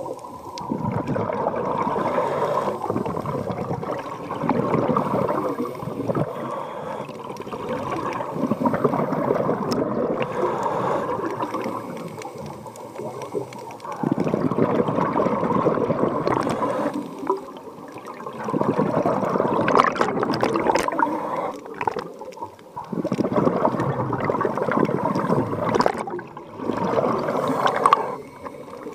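Scuba diver's regulator exhaust bubbling underwater as the diver breathes out. The bubbling comes in spells of a few seconds about every four to five seconds, with quieter gaps for each in-breath.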